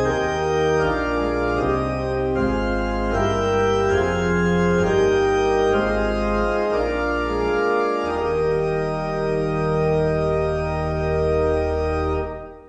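Church organ playing the closing lines of a hymn in sustained chords, ending on a long held final chord that fades away near the end.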